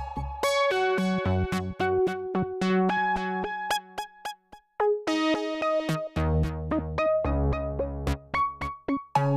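Background music: an electronic keyboard melody over a bass line and a steady drum-machine beat, dropping out for a moment about halfway through.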